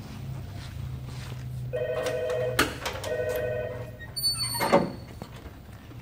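A telephone rings twice, a warbling trill with a short break, and a sharp click falls between the two rings. Then a loud squeak falling steeply in pitch comes as the 1969 Chevelle's trunk lid is raised on its hinges.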